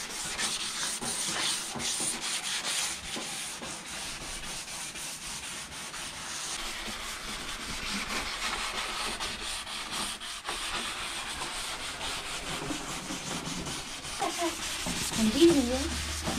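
Hand sanding a car's duckbill rear spoiler, a steady run of quick back-and-forth scraping strokes as the old finish is scuffed down to prepare it for primer.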